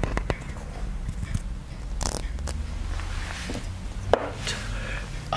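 Close-miked ASMR object handling: scattered light clicks and scratchy rustles, with a sharper click just after four seconds in, over a steady low hum.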